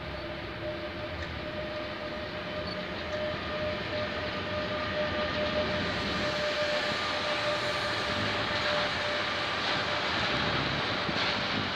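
Electric freight locomotive (Orlen KolTrans E 483, a Bombardier TRAXX) passing, followed by a long train of tank wagons rolling by, the wheels running on the rails with a steady rushing noise that grows louder. A steady whine runs through the first part and fades out about nine seconds in.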